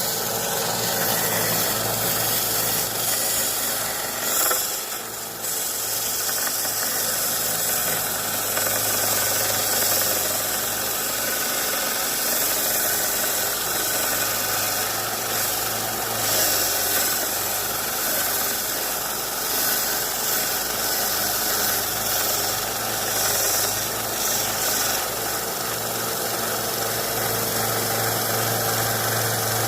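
Central Machinery 1 x 30 inch belt sander running steadily, its sanding belt grinding down the long side of a short piece of 2x4. The sound eases briefly about five seconds in.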